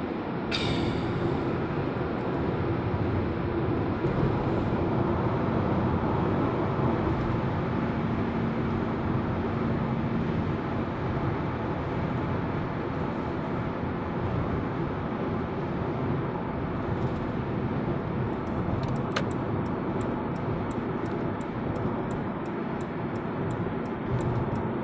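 Steady tyre and engine noise inside a car's cabin while cruising on a highway, with a brief high hiss about a second in.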